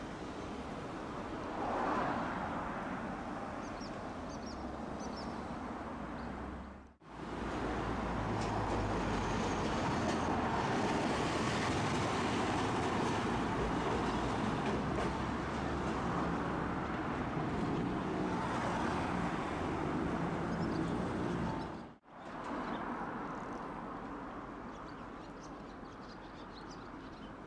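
Tosaden streetcar running along its street track: steady running noise with a low rumble. The sound cuts out sharply for a moment twice, about seven seconds in and again about twenty-two seconds in, and is louder with more low rumble between those two breaks.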